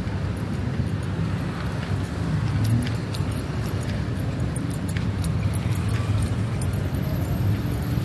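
Steady low rumble of city traffic: cars and taxis idling and creeping along a wet road, with faint scattered clicks.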